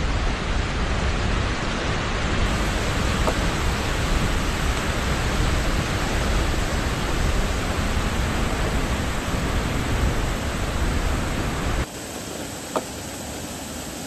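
Helmcken Falls rushing steadily, a dense, loud wash of water noise with a deep rumble underneath. About twelve seconds in it drops abruptly to a softer, thinner rush, and one sharp click follows shortly after.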